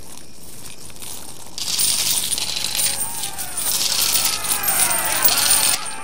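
A shower of tossed coins clinking and jingling together with a crowd cheering, starting loud about a second and a half in.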